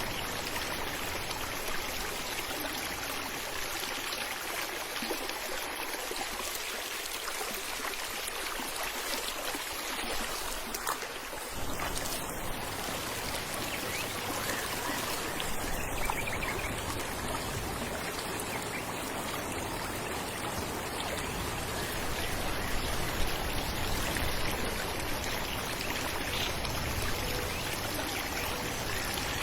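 Falling water rushing and splashing steadily. The deep low part of the rush thins out for several seconds, then comes back suddenly about twelve seconds in.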